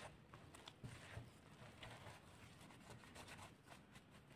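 Faint scraping and soft scattered taps of a wooden spoon stirring shaggy flour-and-water dough in a glass bowl.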